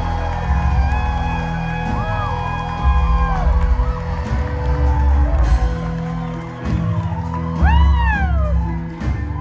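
Rock band playing live without vocals: heavy bass and drums under held notes, with wailing notes that bend up and fall back about two seconds in and again near the end.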